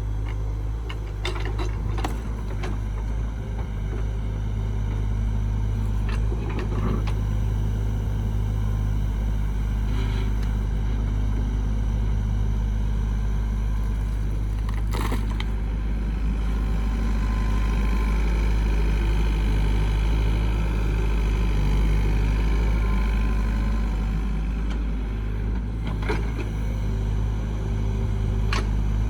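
A construction vehicle's engine running steadily with a low rumble, with scattered short clanks. A higher whine joins for several seconds in the middle.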